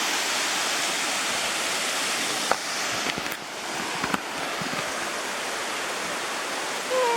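Waterfall water falling and rushing: a steady, even hiss, with a couple of short sharp knocks about two and a half and four seconds in.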